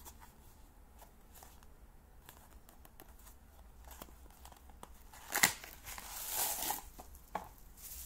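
A small cardboard box being handled and opened: light taps and ticks, then a sharp snap of the flap about five and a half seconds in, followed by a longer rustling and crinkling as the bubble-wrapped flashlight comes out of the box, and one more click near the end.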